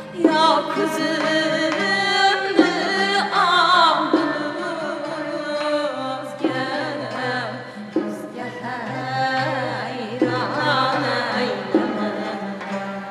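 Two women singing an Uzbek classical song together, accompanied by a small ensemble of chang and long-necked lutes, with sharp struck beats every second or two.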